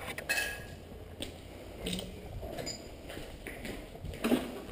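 Footsteps crunching over rubble and debris on a concrete floor: irregular gritty crunches with a few sharp clinks, and a louder knock near the end.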